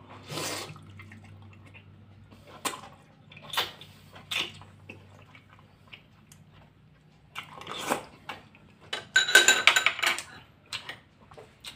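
Close-up eating sounds: a person biting and chewing soft, broth-soaked fish cake from a bamboo skewer, with scattered wet mouth clicks. A louder, busier run of wet clicks and clatter comes about nine seconds in.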